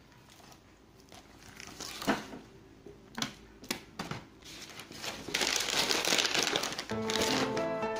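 Plastic bottle, juice cartons and plastic-wrapped snacks handled and packed into a backpack: a few separate knocks, then dense crinkling of plastic packaging from about five seconds in. Music starts near the end.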